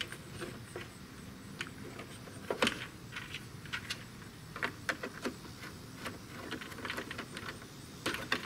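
Plastic tabs and clips of a 2008–2016 Ford Super Duty towing mirror housing clicking and snapping as they are pried loose: irregular sharp clicks, with a few louder snaps about two and a half seconds in, around five seconds, and near the end.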